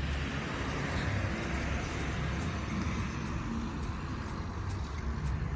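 A road vehicle passing, a steady noise that swells over the first couple of seconds and then slowly eases off, over a constant low rumble.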